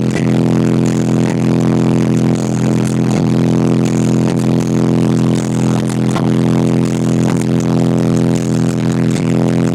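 Car audio system with four Sundown SA-12 subwoofers playing bass-heavy music at very high volume inside the sealed cabin: a loud, steady, distorted bass drone that overloads the microphone.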